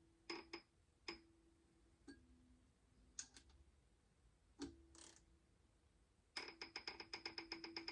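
Faint scattered tool clicks and knocks, then, from about six and a half seconds in, a ratchet clicking rapidly and evenly, about ten clicks a second, as a head stud is run down.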